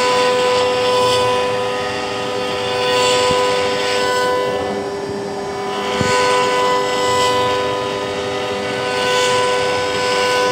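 CNC router spindle running with a steady high whine while its bit carves a wooden block held on the rotary axis. The cutting noise swells and fades about every three seconds as the bit passes over the wood.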